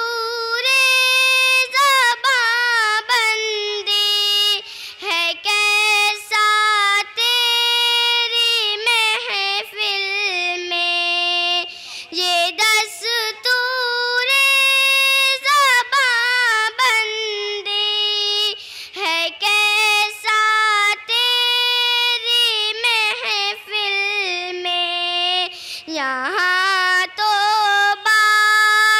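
A young girl singing an Urdu nazm solo and unaccompanied into a microphone, in long held notes that waver and slide between pitches, phrase after phrase with short breaths between.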